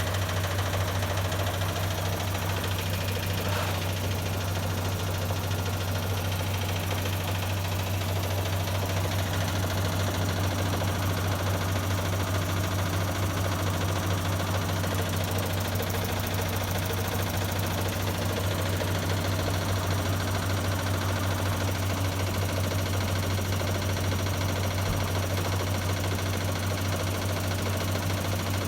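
Hotpoint WMA30 washing machine's drum turning in an unbalanced spin, a steady low hum that does not rise to full spin speed: the load is out of balance.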